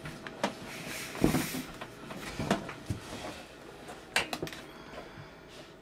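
Handling noise from fitting a white plastic PVC union onto a brass pipe fitting by hand: a scattering of light clicks and knocks, a few louder ones about a second in and again about four seconds in.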